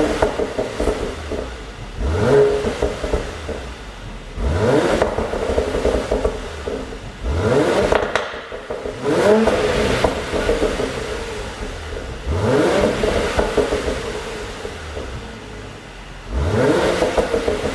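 Mercedes-AMG C43's twin-turbo V6 blipped to higher revs about six times, each rev falling back with exhaust pops and crackles on the overrun from a pop-and-crackle tune.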